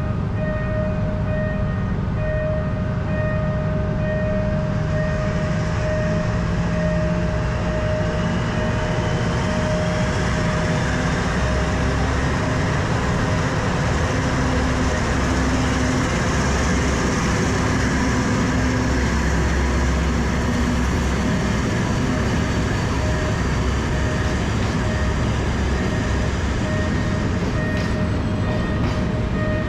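A train passing over a railway level crossing, a steady rumble that grows heavier in the middle, while the crossing's warning signal rings in a rapid, evenly repeating pattern.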